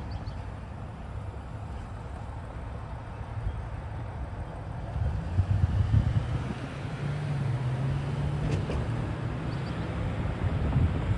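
Road traffic crossing the tracks: a small shuttle bus pulling away, then a car driving past close by about halfway through, its engine and tyre noise peaking and staying louder as it crosses.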